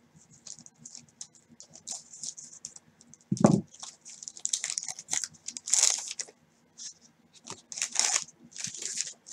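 Paper wrappers of 1989 Score football card packs crinkling and tearing as gloved hands handle and open them, in irregular crisp rustles. A brief low thump about a third of the way in.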